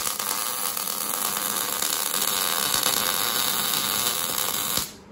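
Wire-feed (MIG) welder arc laying a bead: a steady, dense hiss that cuts off abruptly near the end as the trigger is released.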